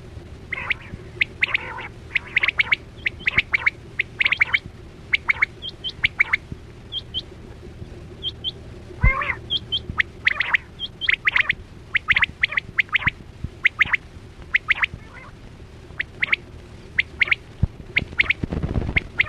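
Quail calling: a long run of short, sharp notes, some single and some in quick clusters of two or three, over a steady low hum.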